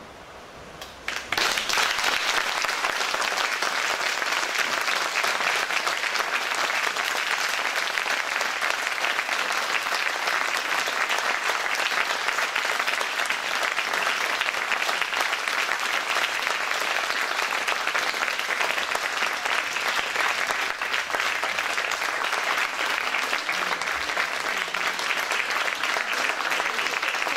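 Audience applauding: clapping breaks out suddenly about a second in and continues steadily.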